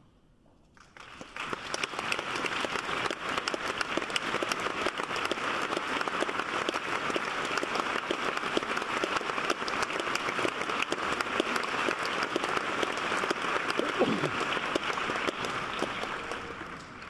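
Concert-hall audience applauding: a dense, steady patter of many hands clapping that starts about a second in and fades away near the end.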